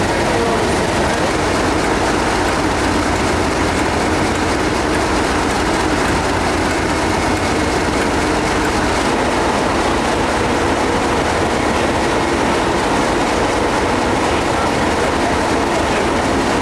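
British Rail Class 37 diesel locomotives' English Electric V12 engines running steadily, a dense, even drone with a few faint held tones through it.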